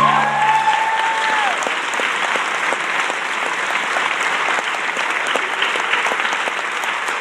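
Audience applauding, breaking out just as a choir's final held chord stops. A long whooping cheer rises over the clapping in the first second and a half.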